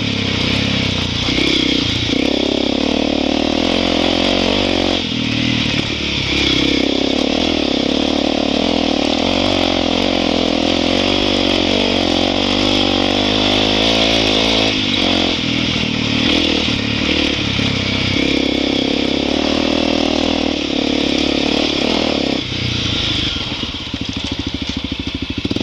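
Motorcycle engine running under way, its pitch rising and falling with the throttle. Near the end it drops to a lower, even putter as the bike slows.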